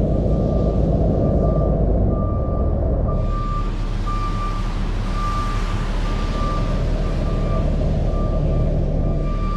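Fire engine's back-up alarm beeping in a steady, even rhythm as the rig reverses, over the low rumble of its diesel engine running.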